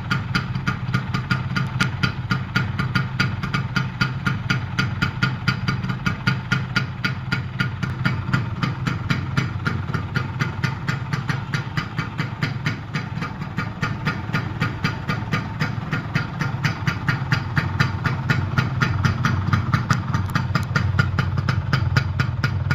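Kawasaki GTO 125's two-stroke, single-cylinder, air-cooled engine idling steadily, with a rapid, even run of exhaust pulses.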